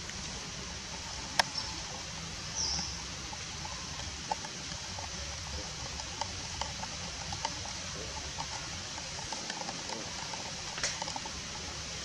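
A young long-tailed macaque eating a piece of fruit: scattered soft clicks and mouth smacks over a steady outdoor hiss. There is one sharp click a little over a second in, and a short high chirp near three seconds in.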